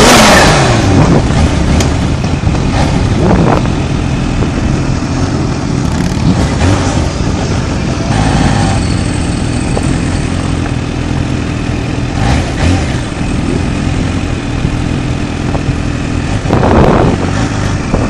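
Kawasaki Ninja H2's supercharged inline-four running at low road speed, heard close up from the bike. The revs drop sharply at the start, then rise and fall a few times, most strongly near the end.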